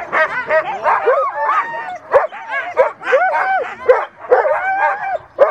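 A chorus of mixed-breed sled dogs yelping, whining and barking at once, many short overlapping calls without a pause, as the dogs stand hitched in harness on the gangline before the run.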